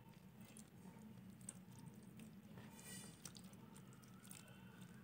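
Near silence, with faint wet squishing and small clicks as a hand mixes soaked sago pearls in water.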